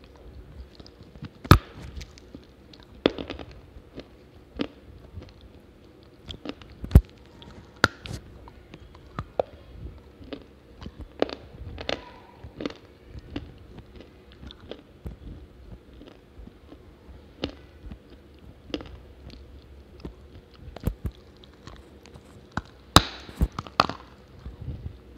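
Dry multani mitti (Fuller's earth clay) being bitten and chewed: sharp, irregular crunches and cracks between softer chewing. The loudest bites come about a second and a half in, around seven seconds in, and near the end.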